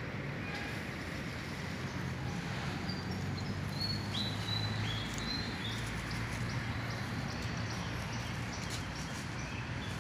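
Outdoor ambience: a steady low hum under a noisy background, with a few short high chirps around the middle.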